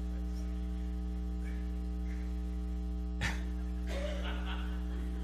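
Steady electrical mains hum in the sound system, with a single click about three seconds in.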